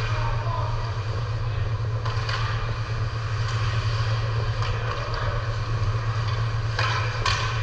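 Ice hockey play: several short, sharp skate scrapes and stick-and-puck clacks at irregular intervals, two close together near the end, over a steady low hum.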